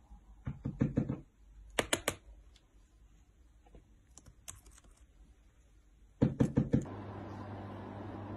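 Laptop keyboard keys clicking under a cockatiel, in short quick clusters of taps with quiet gaps between. The loudest cluster comes about six seconds in. Near the end a steady low hum takes over.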